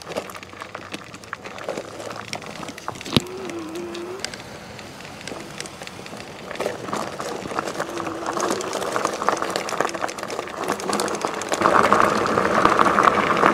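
Electric bike rolling over a gravel path: tyres crunching and rattling, with wind on the microphone. There is a sharp knock about three seconds in and a faint whine that comes and goes. The noise grows louder near the end.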